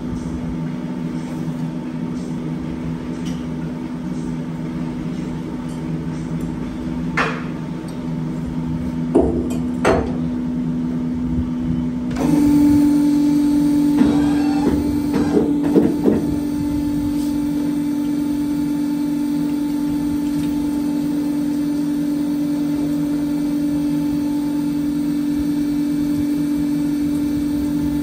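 Electric motor of a spindle machine running with a steady hum that steps up to a stronger, slightly higher tone about twelve seconds in. A few sharp metal clanks of parts being handled come over it, several between about seven and ten seconds and a cluster a little after the tone changes.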